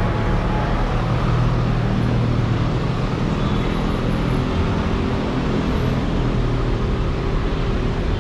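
City street traffic: steady vehicle noise with a low engine hum from a nearby vehicle, strongest for the first few seconds and then fading.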